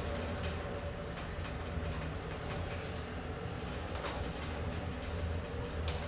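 Inside a lift car: a steady low hum from the lift's machinery, with three sharp clicks, the loudest just before the end.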